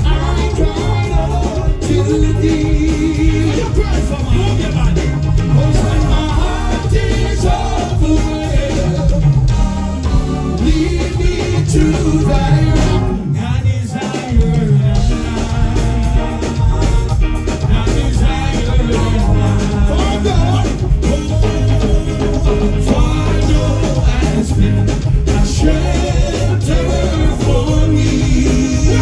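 Live stage music with singing over a steady, heavy bass beat. The music thins briefly about halfway through, then carries on.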